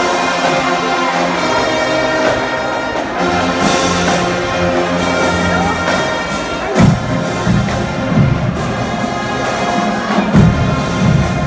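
Marching band brass, sousaphones among them, playing sustained notes, with strong low hits coming in about seven seconds in.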